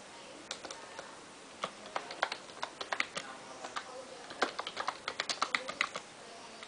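Faint, irregular sharp clicks and taps, scattered at first and coming in a quick run during the last couple of seconds.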